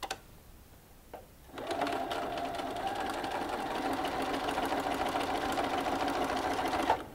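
Bernina sewing machine stitching a diagonal corner-to-corner seam through quilting cotton, starting about a second and a half in, running steadily for about five seconds and stopping abruptly near the end. A couple of faint clicks come before it starts.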